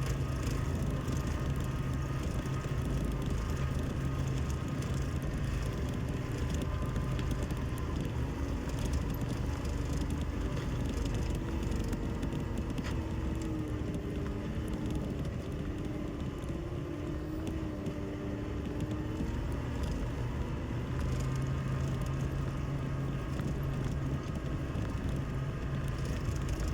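Compact loader's engine running steadily as it pushes a grading blade through wet clay, with a slight dip and rise in pitch about halfway through.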